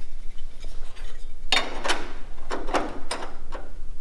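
Hand-made sheet-steel repair panel clinking and scraping against the car body's steel as it is offered up into the cut-out rust repair area, with a few short knocks about halfway through and again a little later.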